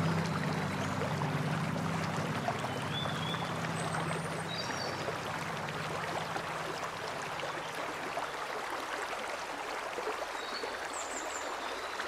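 Shallow mountain stream rippling and splashing over rocks, a steady rush of water, with a few short high bird chirps scattered through.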